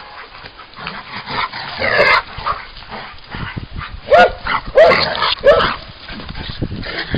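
Old English sheepdogs barking in play: scattered shorter calls, then three loud barks in quick succession about two-thirds of the way through.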